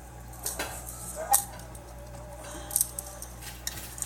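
A few scattered sharp clicks and knocks, about four or five, over a steady low hum.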